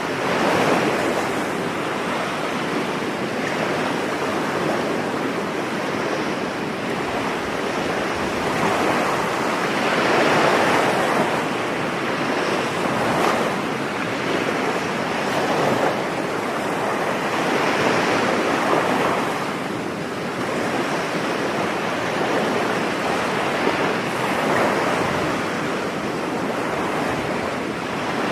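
Ocean surf on a beach: a continuous wash of waves that swells louder every few seconds as each wave breaks, then eases back.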